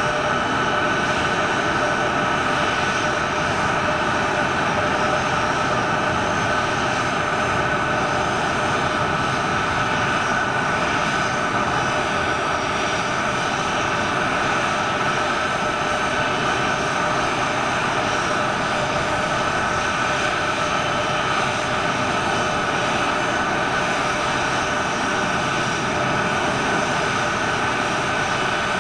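Boeing C-17 Globemaster III's four Pratt & Whitney F117 turbofan engines running at low power as the aircraft taxies: a steady rushing jet noise with a high-pitched whine held at one pitch.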